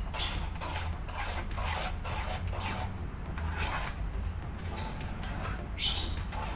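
A spatula scraping and rubbing through thick raw rice-flour and coconut-milk batter against the bottom of a pan, in even strokes about two or three a second, stirring out lumps. Two sharper scrapes come right at the start and about six seconds in.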